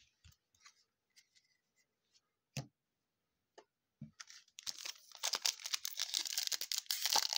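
A few faint clicks and a short knock, then from about halfway in a trading card pack's foil wrapper being torn open and crinkled.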